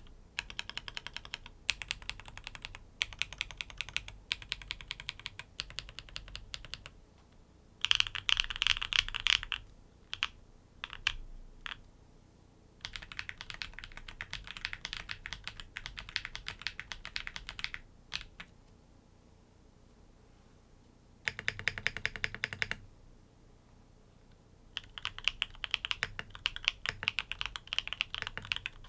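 NEO80 custom mechanical keyboard with tactile switches being typed on in quick runs of keystrokes, with short pauses and a few single strokes between them. The keystrokes have a muted, hollow knocking sound, what Japanese keyboard fans call "kotokoto".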